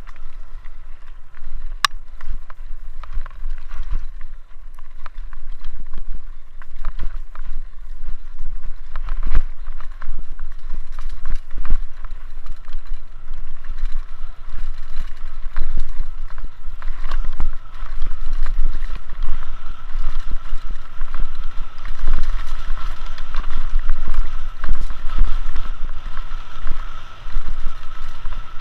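Mountain bike ridden fast down a rough dirt singletrack: wind rushing over the microphone with a constant rattle and irregular knocks from the bike jolting over roots and stones. A steady high whine joins in from about halfway.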